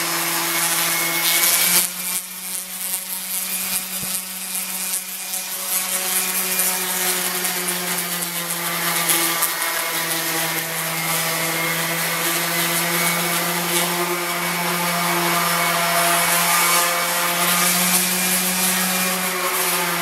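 Handheld electric grinder running steadily with a constant high motor whine, its abrasive rasping against the painted steel of a garden tractor's fender to strip it down for repainting.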